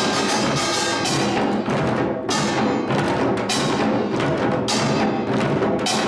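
Samulnori ensemble playing: kkwaenggwari small gongs clanging over janggu and buk drums in a dense, driving rhythm with strong accents every half second or so.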